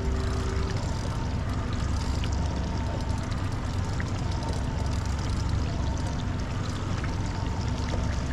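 Steady low rumble of wind and water noise on a small fishing boat, with a faint steady hum underneath.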